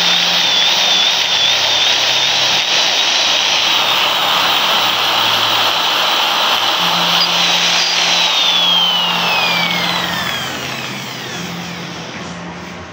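Electric hand drill running at full speed with a high, slightly wavering motor whine, then released about eight seconds in and spinning down, its whine falling in pitch as it slows and fades.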